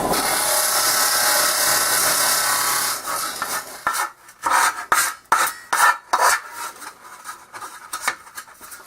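A file rasping on a metal part by hand: a steady rasping for about three seconds, then a run of separate, uneven strokes that fade toward the end. The jagged cut edges and sharp corners are being smoothed off so they won't start cracks.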